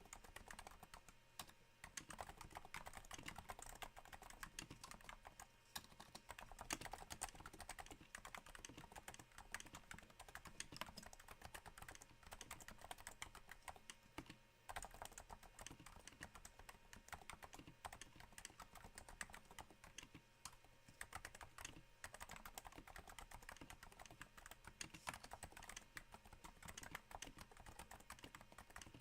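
Continuous typing on a Cooler Master Novatouch keyboard whose Topre switches are damped with Hypersphere silencing rings: quiet, soft keystrokes in a patter like rain, with a brief pause about halfway through.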